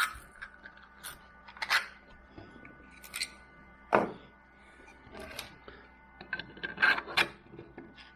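Hands handling a freshly 3D-printed plastic camera mount: scattered clicks, taps and rubbing of hard plastic, with a handful of sharper knocks spread through, the loudest about four seconds in and around seven seconds.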